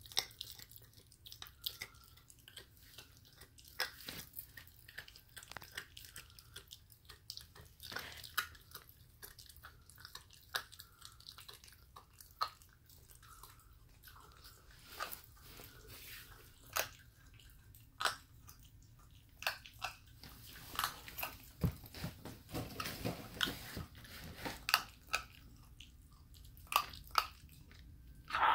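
A six-week-old puppy chewing and crunching a raw bone-in chicken wing that has been crushed with a mallet: irregular sharp bites and crunches about a second apart, coming thicker and faster near the end.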